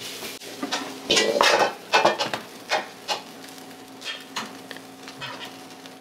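Metal ladle scraping and knocking against a wok as egg fried rice is scooped out and pressed onto a plate, the loudest strokes in the first half, then lighter clinks, over a sizzle that dies away.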